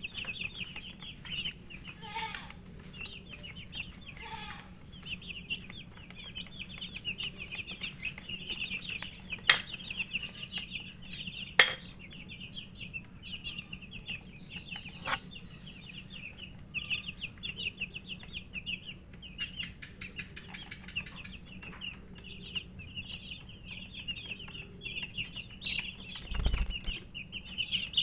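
A group of domestic chicken chicks peeping rapidly and without a break. A few sharp clicks cut through, the loudest about a third of the way in, and there is a low thump near the end.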